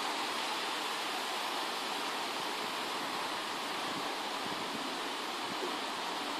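Steady rush of water spilling down a small waterfall on a drainage canal, an even hiss without breaks.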